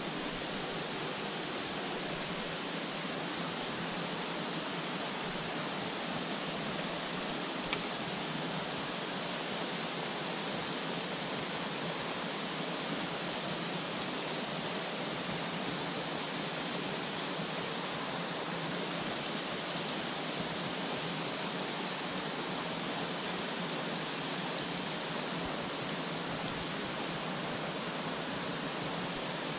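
Small mountain stream rushing steadily over rocks and a low cascade, an even hiss of running water.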